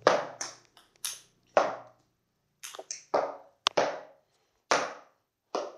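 About ten sharp cracks at irregular intervals, each with a short ringing tail in a small hard-walled room: something being struck repeatedly in a hitting game.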